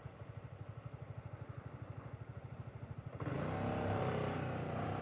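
Voge SR4 Max scooter's single-cylinder engine idling with an even, quick pulse. About three seconds in it gets louder as the throttle opens and the bike pulls away, its note climbing gently.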